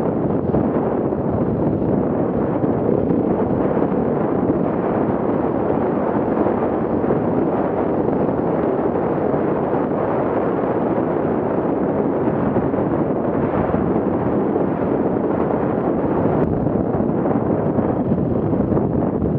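Enduro motorcycle ridden at speed on a dirt track, its engine mixed with heavy wind buffeting on the camera's microphone, loud and steady.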